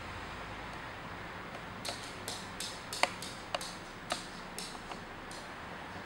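A male Eclectus parrot moving about close by, giving a run of about ten irregular, sharp taps and clicks over a few seconds, starting about two seconds in, over a steady hiss.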